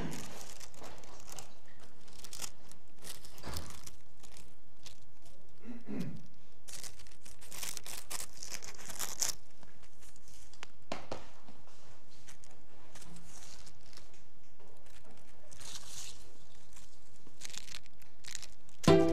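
Scattered short rustling and crinkling sounds. Music starts abruptly right at the end.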